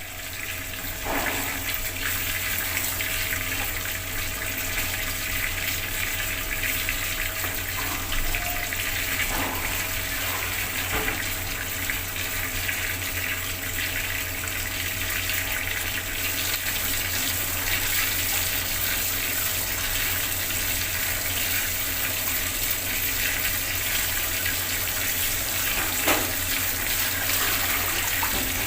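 Bathroom water tap running hard, a steady rush of water.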